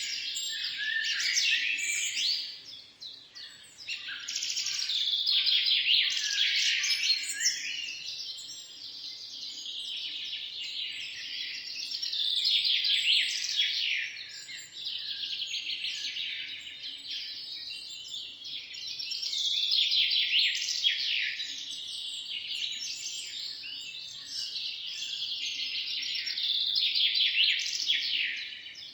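Birds singing: dense, rapid chirping and trilling, high-pitched, that swells and fades in waves about every seven seconds.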